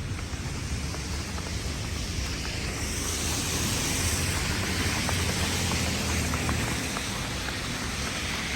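Steady rush of wind and street traffic with a low rumble, swelling around the middle as if a vehicle passes.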